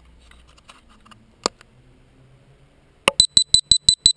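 A sharp click about a second and a half in. Near the end another click, then a quick run of short, high electronic beeps, about six a second, from a handheld camera signalling that it is stopping recording.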